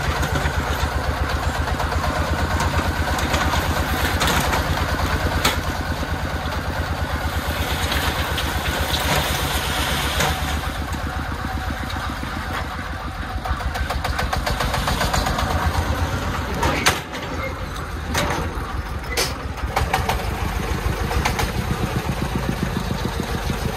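Diesel engine of a three-wheeled công nông dump truck running with a steady fast chug while its hydraulic tipper raises the loaded bed. A few sharp knocks sound in the last third.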